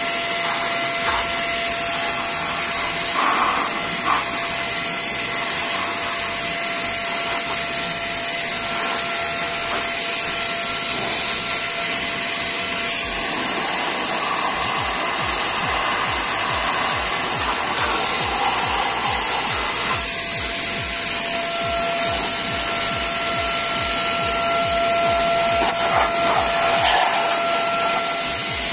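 Proman 1200-watt vacuum cleaner running in blower mode, its motor whining steadily over a strong rush of air as the nozzle blows dust out of an opened power amplifier.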